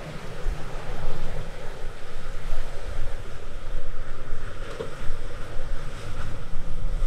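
Wind buffeting the microphone over waves breaking and rushing, with the drone of a center-console boat's engine running through the choppy inlet.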